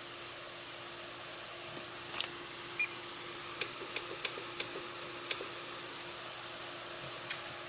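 Breadfruit pieces deep-frying in hot oil in a cast iron pot: a steady sizzle with scattered small pops and crackles, the first fry just after the pieces went in.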